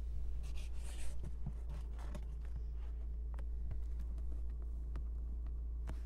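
A steady low hum inside a car's cabin, with scattered light clicks and a brief rustle about a second in as the interior trim is handled.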